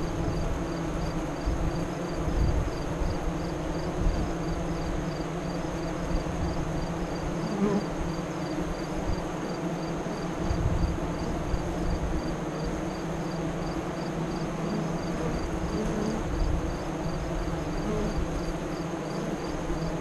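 Honey bees buzzing at the hive entrance: a steady hum, with a few bees flying close past now and then. Gusty wind rumbles on the microphone underneath.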